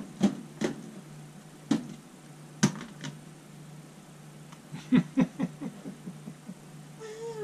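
Dishes and a plastic container lid being handled and set down on a kitchen counter: a scatter of sharp clicks and clatters, with a quick run of them about five seconds in.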